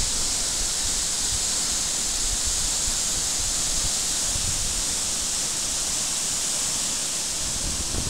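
Waterfall plunging into its pool: a steady, hissing rush of falling water, with a few brief low bumps.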